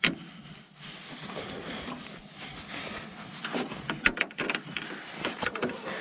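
Light metal clicks and scraping as a nut and lock washer are fitted and tightened onto a battery cable terminal, over a faint steady hiss. The clicks come in a short cluster in the second half.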